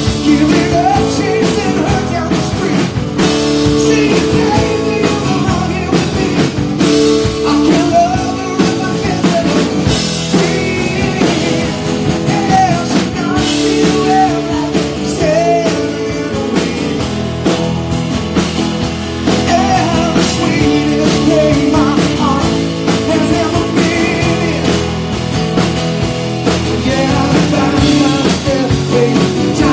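A live rock band playing a song: strummed acoustic guitar, electric bass, drum kit and keyboard, with a male lead voice singing.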